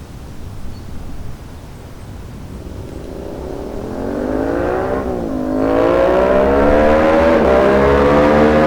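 Yamaha MT-07's parallel-twin engine through an Akrapovic full exhaust with the dB killer removed, approaching and getting steadily louder under hard acceleration. The revs climb, broken by quick drops in pitch at quickshifter upshifts.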